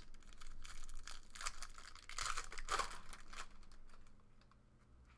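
A foil trading-card pack being torn open, its wrapper crinkling and crackling. The rustling dies down near the end.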